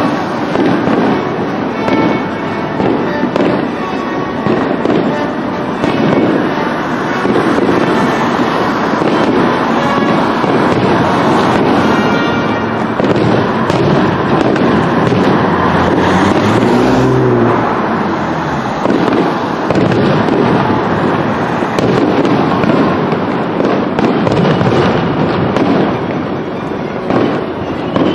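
Aerial fireworks display: a dense, continuous barrage of shells bursting and crackling, one report running into the next. A short rising-and-falling tone shows through about two thirds of the way in.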